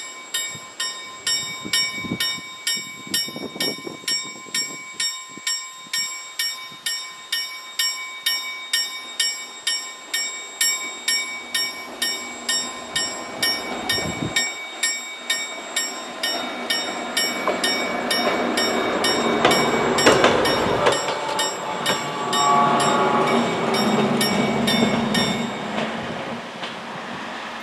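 Level-crossing warning bell ringing in even strokes, about two a second, while a train approaches and passes over the crossing. The rumble of its wheels and engine grows louder to a peak about two-thirds of the way through. The bell stops near the end.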